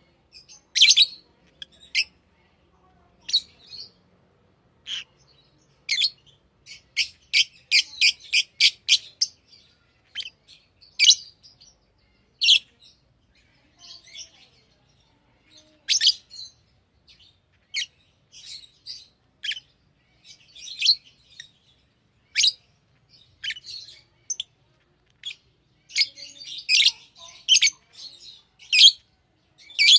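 Pet lovebirds chirping: short, sharp, high-pitched calls at irregular intervals, with a quick run of about eight calls about a quarter of the way in and a dense cluster of calls near the end.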